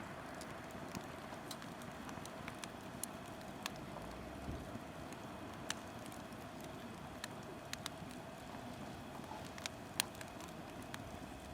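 Conifer firewood burning, crackling with scattered sharp pops over a steady hiss, one pop louder than the rest about ten seconds in.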